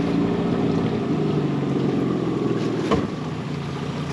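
Small boat's outboard motor running steadily, with a single sharp knock about three seconds in, after which the motor sounds a little quieter.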